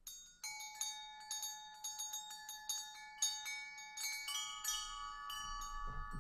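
Chimes ringing: many light strikes in a loose, irregular run, their high bell-like tones overlapping and ringing on, with one lower tone sustained through most of it.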